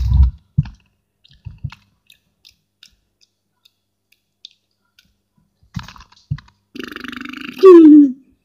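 A few low bumps and small clicks of a phone being handled, then near the end a man lets out a long, loud belch: rough and rattling at first, then swelling and dropping in pitch before it stops.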